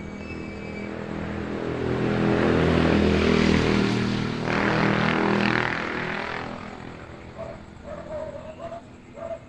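An engine passing by, growing louder to a peak around the middle and then fading away.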